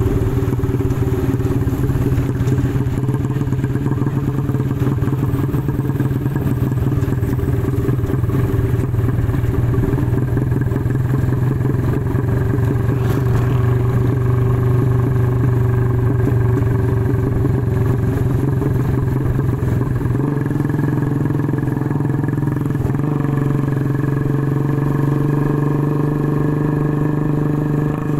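Motorcycle engine running steadily while riding along a road, heard from on the bike. The engine note rises a little about two-thirds of the way through.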